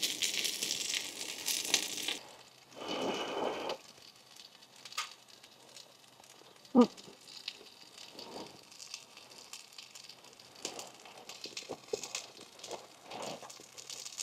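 Small wood fire crackling with scattered pops, with a rustling burst in the first few seconds and a brief falling squeak about seven seconds in.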